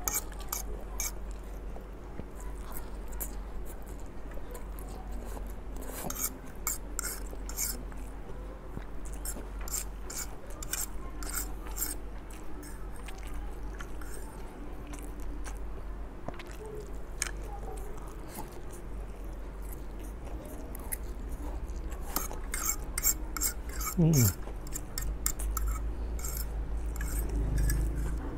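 Fork clinking and scraping on a ceramic plate while a person eats and chews fried instant noodles, with many small clicks. A steady low hum runs underneath, and a short falling tone comes near the end.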